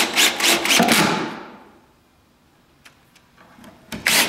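Cordless drill/driver driving a screw into a wooden pocket hole: a rapid, even clicking about seven times a second that fades out, then after a pause starts again near the end.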